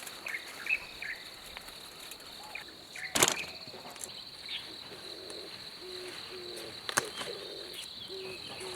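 Rural outdoor ambience: a steady high-pitched insect drone with scattered bird chirps. A sharp knock comes about three seconds in and another at about seven seconds, and a few short low calls sound near the end.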